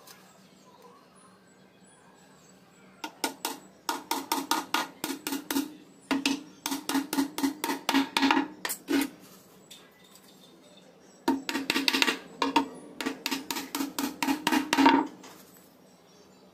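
A hammer driving small nails into a plywood lid laid on a hollow wooden box: two runs of quick blows, about four or five a second, the hollow box ringing under each one. The first run starts a few seconds in and the second comes after a short pause.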